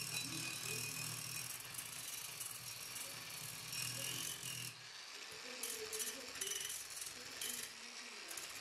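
Angle grinder with a sanding disc working the cast-iron surface of an old charcoal iron: a continuous scratchy, rasping sanding sound over a low hum, with the hum dropping away about halfway through.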